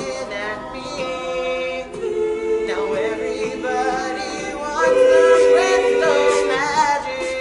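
All-male a cappella group singing held chords in close harmony with no instruments. The chord swells louder about five seconds in, and a solo voice ornaments over the top before the singing breaks off near the end.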